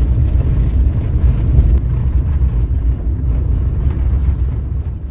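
Vehicle on the move: a steady, loud low rumble of engine and road noise that fades out just after the end.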